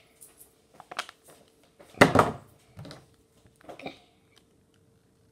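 Close handling noises at the microphone: a few light clicks about a second in, a short loud rustle about two seconds in, and more clicks near four seconds, over a faint steady hum.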